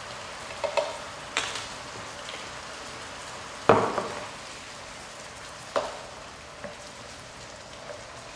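Chicken pieces sizzling in bacon grease in an electric skillet, a steady hiss, while a utensil stirs them and knocks against the pan several times, the loudest knock just under four seconds in.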